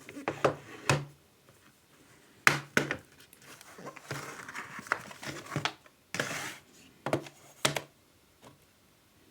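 Plastic packaging being handled and opened: sharp clicks and snaps in small groups, with a longer stretch of crinkling a few seconds in.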